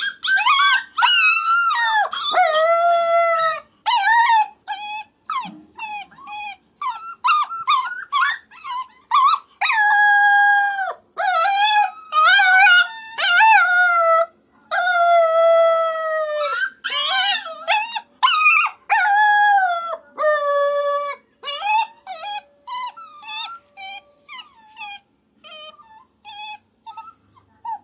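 Puppy whining and howling in a long series of high cries. Some are drawn out for a second or two and bend up and down in pitch, and they give way to shorter yips and whimpers near the end.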